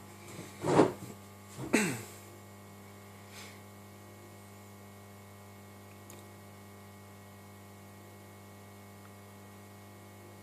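Steady low electrical hum, with two short noises about a second apart near the start.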